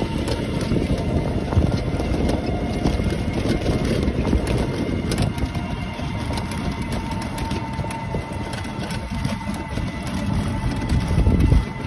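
Motorcycle riding along a road: engine and road noise under heavy wind rumble on the microphone, with a faint steady whine. The wind rumble swells louder shortly before the end.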